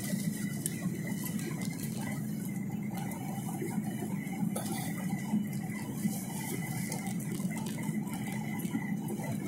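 Steady drone of a Boeing 737 airliner's jet engines and rushing airflow, heard inside the passenger cabin during the landing approach with the flaps extended.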